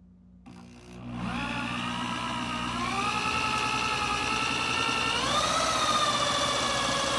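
Electric drill driving a Stripmeister wire stripper, spinning up about half a second in and then running with a steady whine as insulated wire feeds through; the pitch steps up a little about five seconds in.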